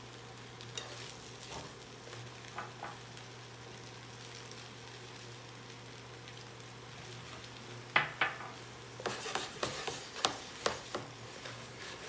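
Food frying in a pan with a faint sizzle while a utensil stirs it, clicking and scraping against the pan. Two sharp knocks come about eight seconds in, followed by a quick run of clicks. A steady low hum runs underneath.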